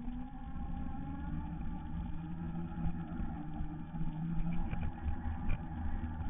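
Segway personal transporter rolling along a concrete path: the electric drive's gear whine, its pitch shifting a little, over a steady low rumble of the wheels and frame, with a few light knocks about five seconds in. Heard from a camera mounted on the Segway's front.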